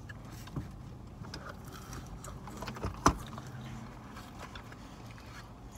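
Small handling sounds of food and drink being eaten in a car: faint rustles and light clicks over a low steady hum, with one sharp click about three seconds in.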